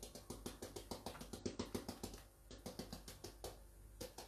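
Rapid light tapping, about six taps a second, of a plastic icing-sugar shaker being shaken and tapped over a frying pan, with a brief pause about two seconds in.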